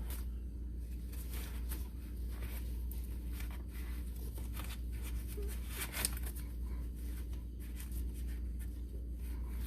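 A rag wiping the engine's oil filter mounting surface: a run of short, faint rubbing and scuffing strokes over a steady low hum.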